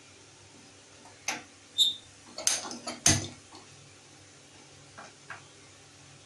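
Metal cookware clanking as a kadai and utensils are handled: a quick cluster of sharp knocks and clatters, one with a short ringing ping, then two light taps a couple of seconds later.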